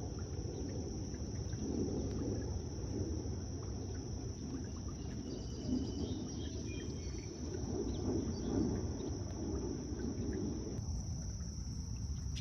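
A steady high-pitched insect trill over a low rumbling outdoor noise.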